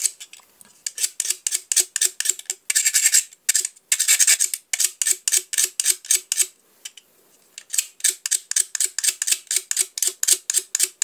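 Dirty soldering iron bit being scraped clean, fast back-and-forth rubbing strokes at about five a second with two short pauses, to clear the built-up dirt so the tip heats properly.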